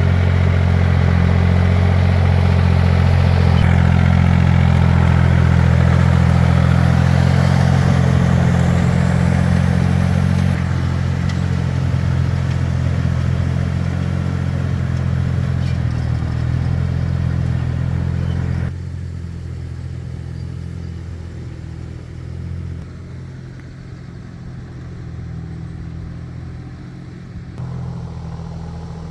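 Engine of a two-wheel tractor (power tiller) running steadily under way. About two-thirds of the way through it drops suddenly to a quieter level and runs on.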